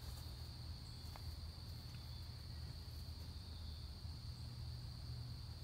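Crickets chirring in a steady, unbroken chorus on one high even pitch, over a low steady hum.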